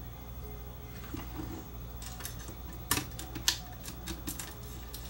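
Sharp clicks and knocks of a plastic cassette-deck transport mechanism being picked up, turned over and handled with a screwdriver on a workbench. The clicks begin about two seconds in, a handful of them, two louder than the rest.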